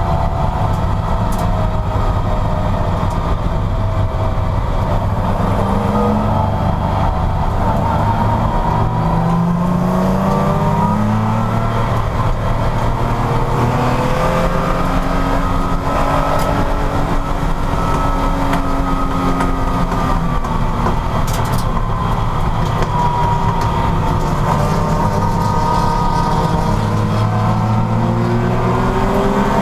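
Porsche racing car's engine running hard under race conditions. The revs climb in steps through the gears and sweep down and up again several times, as the car brakes into corners and accelerates out.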